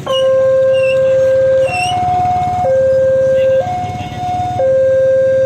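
Level-crossing warning alarm sounding a two-tone signal that switches between a lower and a higher tone about once a second, starting abruptly. It is the warning that a train is approaching and the barrier arms are being lowered.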